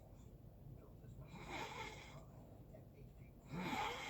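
Snoring: two noisy snoring breaths about two seconds apart, the second, starting about three and a half seconds in, the louder.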